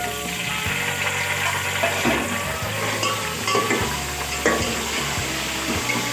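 Raw chicken pieces sizzling in hot oil in an aluminium pot as a metal slotted spoon stirs them, with a few scrapes and knocks of the spoon against the pot.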